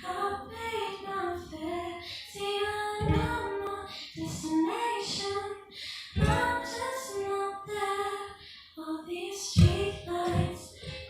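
A young female singer singing a slow melody with long held notes, with a few deep low notes sounding beneath the voice.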